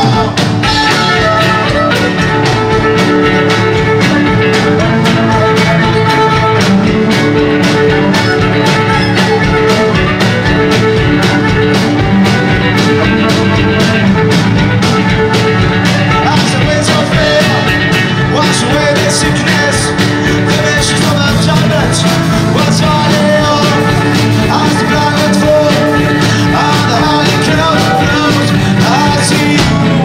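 Live rock band playing loudly and steadily: electric guitar, drum kit and violin.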